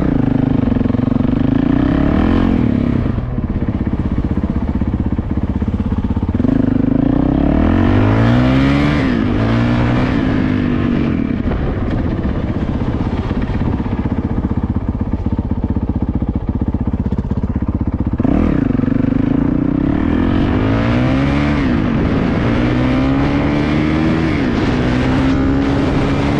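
Honda CRF450L's single-cylinder four-stroke engine running under way, its pitch climbing as the throttle opens and dropping off again, several times over, as it is ridden through the gears.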